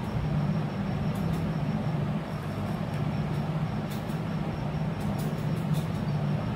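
Steady low hum over a constant rumbling noise, with a few faint light ticks.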